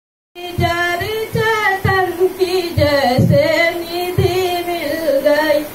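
A young woman singing a Hindi devotional welcome song into a handheld microphone without accompaniment, starting about half a second in. She holds long notes with a wavering pitch.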